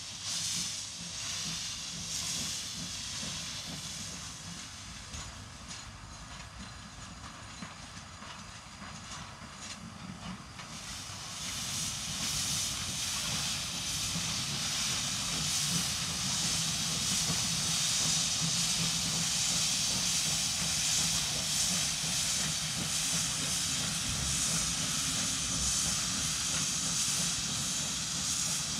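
Pt47 steam locomotive letting off steam: a steady hiss that grows louder about eleven seconds in, over a faint low rumble.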